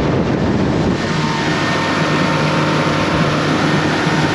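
Outboard motor of a small panga boat running steadily under way, a constant low hum with a broad rushing noise over it.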